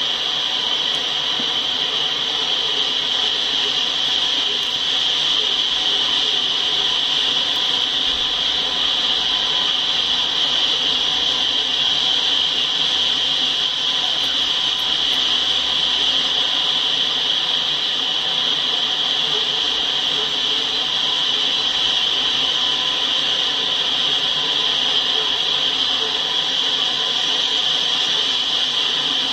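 Tank cars of a freight train rolling past, their wheels on the rails making a steady hiss with no breaks or clanks. It is picked up through a live trackside camera's thin-sounding microphone.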